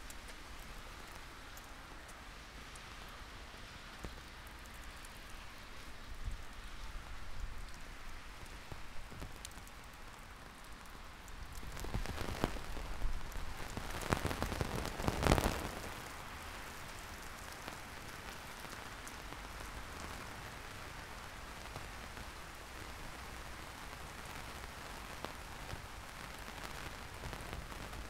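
Heavy rain falling, a steady patter of drops on surfaces, growing louder and denser for a few seconds about halfway through.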